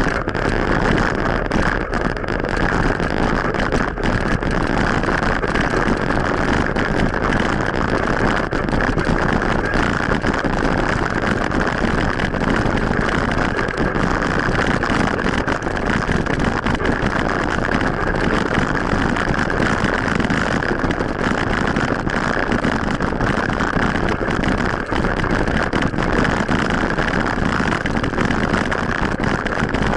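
Steady road noise of a ride along a street, with motor traffic going by.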